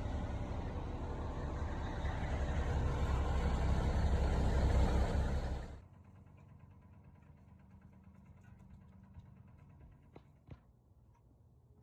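An engine running with a heavy low rumble, growing a little louder, then cut off abruptly about six seconds in. A quiet background follows, with two short clicks near the end.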